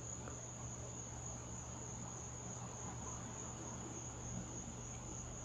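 Crickets chirping in a steady, continuous high-pitched chorus, over a faint low hum.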